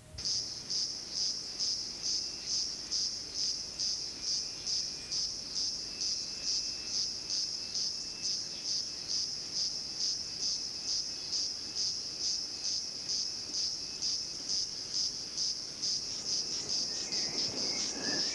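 Insects calling in the forest: a high, loud buzz that pulses steadily about two to three times a second. A few short chirping calls join in near the end.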